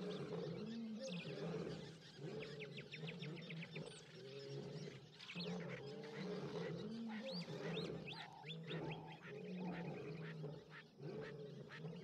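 Recorded roars of unfamiliar lions from a territorial playback: repeated deep grunting calls, several lions overlapping. Small birds trill high above them a few times.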